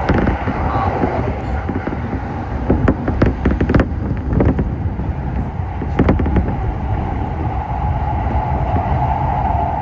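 Electric train running, heard from inside a passenger car: a steady rumble of wheels on rail with a held tone, and clusters of sharp clicking clatter about three seconds in and again around six seconds as the wheels cross rail joints or points.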